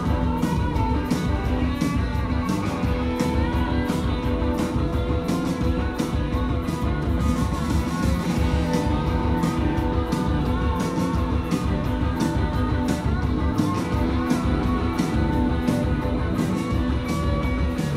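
Live rock band playing: electric guitar and bass guitar over drums, with a steady cymbal beat.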